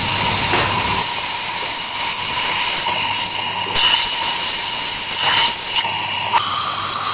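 Dental surgical suction hissing steadily with a high airy rush and a faint steady tone underneath. The hiss drops away for a moment about six seconds in, then comes back.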